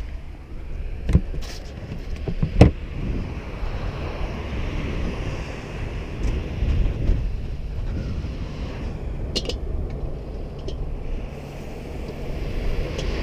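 Wind rumbling steadily on the microphone, with faint surf behind it. A few sharp knocks and clatters from gear being handled break through, the loudest about two and a half seconds in and two more later on.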